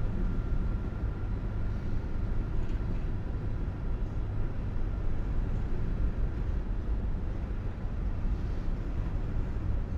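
Freight train rolling past behind its diesel locomotives: a steady low rumble.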